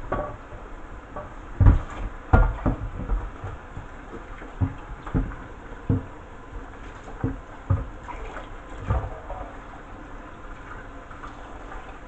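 Tap water running into a stainless steel sink while a tumble dryer condenser unit is scrubbed with a brush, with about ten irregular knocks and bumps as the unit is handled against the sink, the loudest about two seconds in; the knocks stop after about nine seconds and the water runs on.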